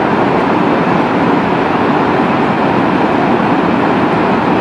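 Loud, steady rushing of a muddy flash flood tearing down a mountain river valley after a cloudburst.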